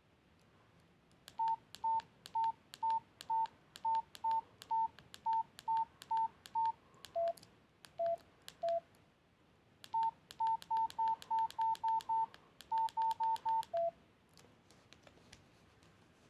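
Nokia C2-01 keypad being pressed, each key click sounding a short beep. The beeps come in two uneven runs: most at one pitch, with a few lower beeps at the end of each run.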